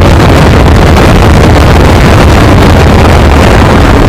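Loud, steady wind rushing over the microphone together with the drone of a TVS Apache RR310 motorcycle riding at speed.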